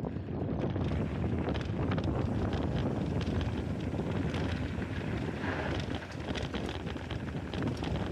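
Wind buffeting the microphone over the steady rumble of mountain bike tyres rolling on a dry dirt trail, with many small clicks and rattles from the bike and loose grit.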